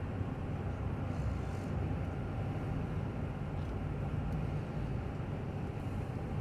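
Steady road and drivetrain rumble of a 2020 Chevy Suburban cruising, heard inside the cabin.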